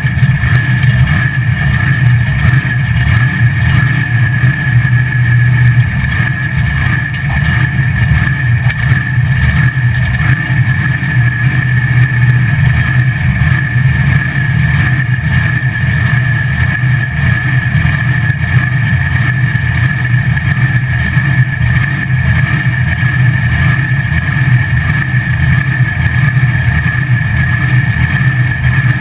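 Supercharged drag-race engine of a Chevy LUV pickup running steadily at low speed, a loud, even rumble heard from inside the cab.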